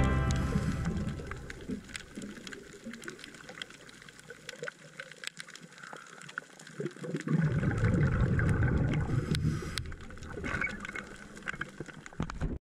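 Underwater reef ambience: many scattered sharp clicks, with a gurgling rush of scuba exhaust bubbles about two-thirds of the way through and a smaller one near the end. Guitar music fades out in the first second.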